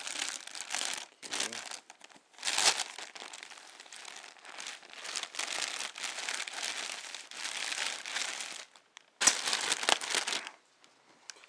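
Clear plastic packaging bag being handled and pulled open, crinkling in irregular surges, with two louder bursts, one about two and a half seconds in and one near the end, then it goes quiet.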